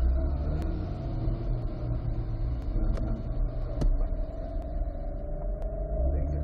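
Corvette V8 engine running at low revs in first gear while the car creeps along at walking pace, heard from inside the cabin as a steady low rumble. It grows louder near the end as the car starts to pick up speed.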